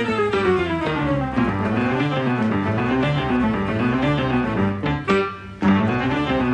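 Background music, a continuous melodic instrumental line, with a brief drop in level about five seconds in.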